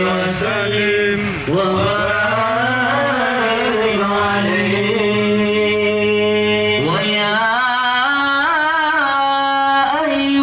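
Sholawat chanted through a loudspeaker sound system: one voice holding long, ornamented notes that waver up and down, with an upward slide about seven seconds in.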